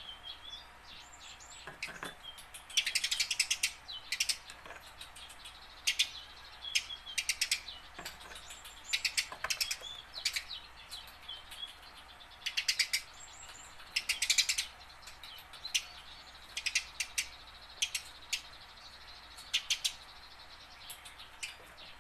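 Eurasian tree sparrow chirping in quick runs of sharp notes, with short pauses between the runs.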